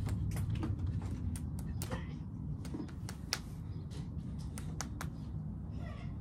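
Many light, irregular clicks and taps over a steady low rumble, as hands meet in a game of rock, paper, scissors with tortilla wraps held between them.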